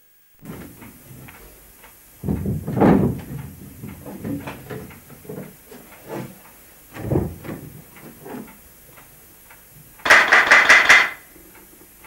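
Wooden knocks and footsteps, with a door shutting, then a loud rapid rattle of many quick clicks lasting about a second near the end.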